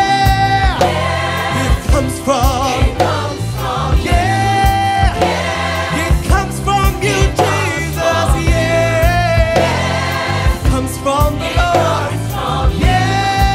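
Gospel song: a choir singing long held notes over a band with bass and a steady beat.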